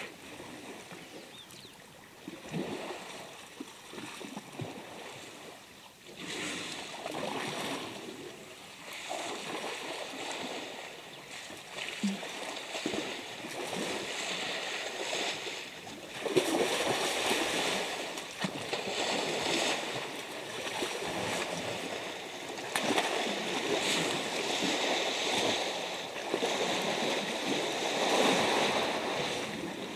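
Elephant bulls splashing and sloshing muddy water in a waterhole as they wallow, in uneven bouts that swell and fade every few seconds and grow louder in the second half.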